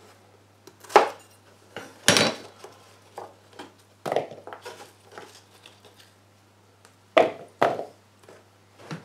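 Chef's knife chopping potato on a plastic chopping board: separate sharp knocks of the blade on the board, a second or more apart, the loudest about two seconds in and a quick pair near the end, with quieter clatter of potato cubes being gathered in between.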